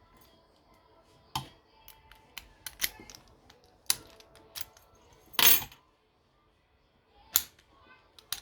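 Metallic clicks and clacks of an American Lock 1100 steel padlock being worked with its key, with faint metallic ringing between. A louder clack comes about five and a half seconds in, and another about two seconds later.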